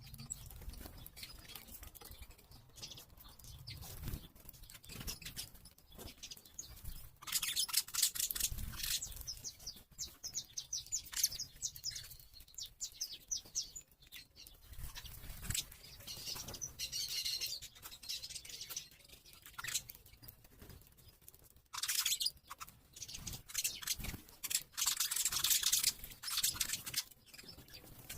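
Small birds chirping and twittering in bursts, including a quick run of short high notes.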